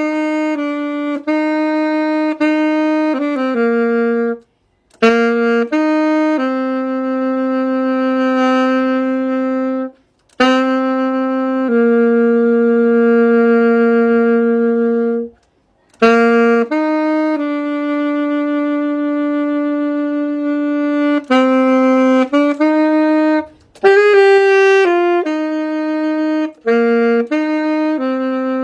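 Solo saxophone playing a slow worship melody in phrases: runs of shorter notes and long held notes, with brief pauses for breath between phrases.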